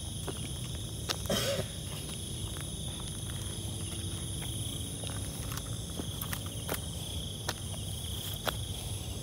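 Insects trilling in a steady, high-pitched chorus, with scattered faint clicks and one short noise about a second and a half in.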